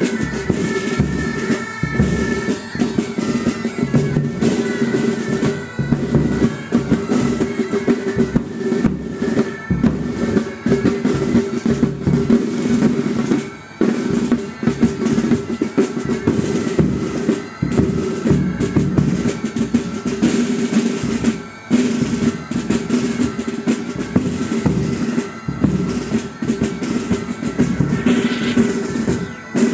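Pipe band playing: bagpipes sounding over steady drones, with snare and bass drums beating out a strong rhythm, the drums prominent.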